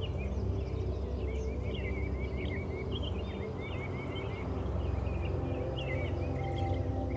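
Small birds chirping: many short, high chirps in quick runs throughout, over a low, steady hum of held tones that gains a higher tone near the end.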